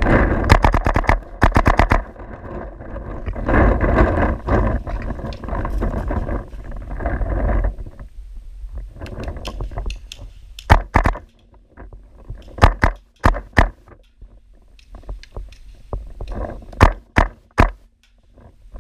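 Paintball markers firing: a quick string of sharp pops at the start, then single and paired shots spaced out over the rest. In between, a few seconds of rustling and knocking noise as the player moves between bunkers.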